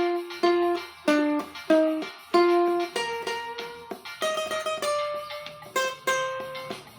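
Cavaquinho picking out a hymn melody, one sharply plucked note after another, each ringing briefly and fading, over a faint low accompaniment.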